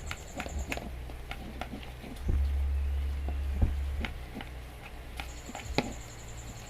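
Slime mixture being stirred in a container as it clumps: irregular clicks and taps of the stirrer against the bowl, with a low rumble from about two to four seconds in.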